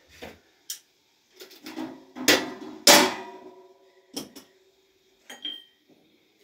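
Metal kitchenware being handled: a run of knocks and clanks, the two loudest about two and three seconds in, each leaving a short metallic ring, then a few lighter knocks.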